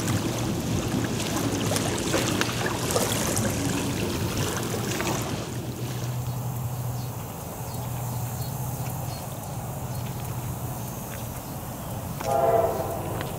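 Wind buffeting the microphone by open water for the first few seconds, then quieter with a steady low hum. Near the end, one short blast of an approaching freight locomotive's horn, still out of sight.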